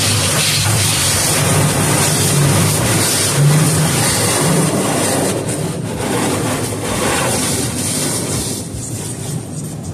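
Automatic car wash heard from inside the car: water spray and cloth wash strips rubbing and swishing over the windshield and body, a dense steady rush that eases a little near the end.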